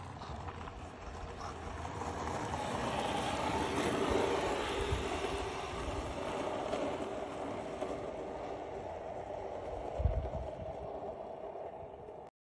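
Skateboard wheels rolling over asphalt, a steady rumble that builds over the first few seconds, with a single knock about ten seconds in.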